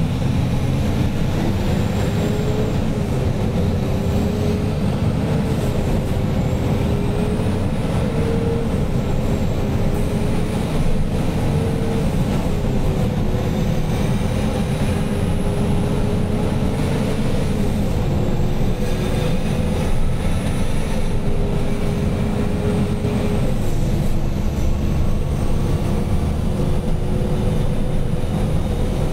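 A fully loaded Chinese truck's engine running steadily under way, heavy low rumble, with a whine that climbs early and then drops back in steps three times as it moves along.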